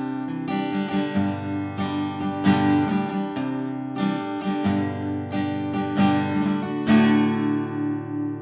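Artavox Ohm steel-string acoustic guitar, Brazilian rosewood back and sides with an Engelmann spruce top, played with picked notes and strummed chords, recorded dry without reverb. A last chord a little before the end rings on and fades.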